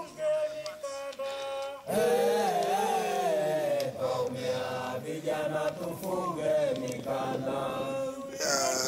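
Background music: a song with several voices singing together. It opens on held notes, and the singing comes in louder about two seconds in.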